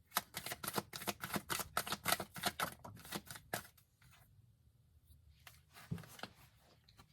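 A tarot deck being shuffled by hand: a rapid run of card flicks and slaps for about three and a half seconds, then a few softer card-handling sounds near the end.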